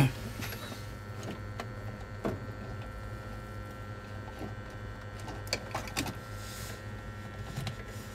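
Steady low electrical hum from running bench equipment, with a few faint clicks and taps from handling.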